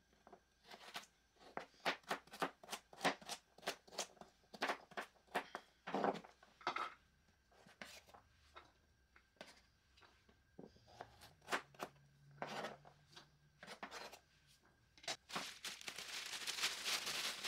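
Chef's knife dicing carrots on a plastic cutting board: a steady run of sharp knife strikes, about three a second, thinning to scattered cuts after about seven seconds. Near the end a plastic bag crinkles.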